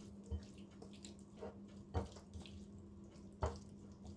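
Shredded chicken being tossed and mixed with lemon juice and seasoning in a bowl: a few short, soft wet squelches over a faint steady hum.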